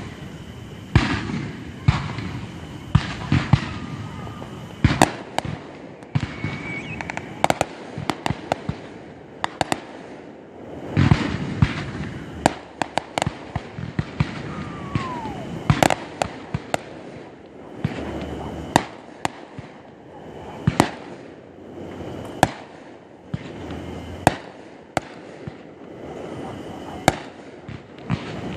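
Fireworks going off: an irregular string of sharp bangs and crackles, a few loud reports standing out among many smaller pops.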